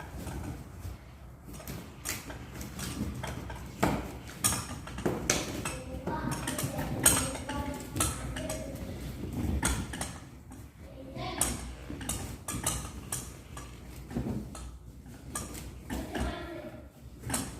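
Irregular clicks, taps and knocks from hands working plastic balloon-stand parts and balloons, with brief low voice sounds at times.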